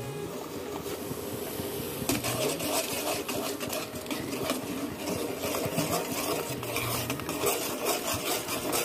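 A metal spoon stirring and scraping around a steel pot of hot milk, in quick repeated strokes that get busier about two seconds in.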